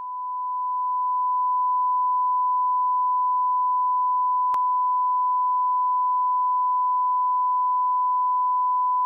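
Steady electronic test tone, a single pure beep near 1,000 hertz. It fades in over the first couple of seconds and cuts off suddenly just after nine seconds, with a brief click about four and a half seconds in.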